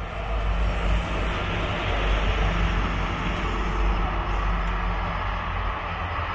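Passenger train hauled by a diesel locomotive running past: a steady rumble with the even rushing of the rolling coaches.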